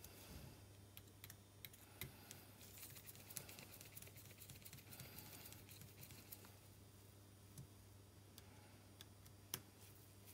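Near silence with faint, scattered clicks and ticks from a precision screwdriver driving small screws through the camera sensor board into its plastic lens mount, one click a little louder near the end, over a low steady hum.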